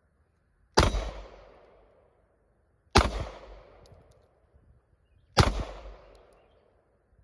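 Three shots from a Springfield Hellcat 9mm pistol in slow aimed fire, about two seconds apart, each sharp crack trailing off in a short echo.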